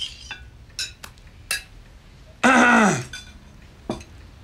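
Cutlery clinking against dinner plates a few times, then a loud, short human vocal sound, about half a second long, that falls steeply in pitch.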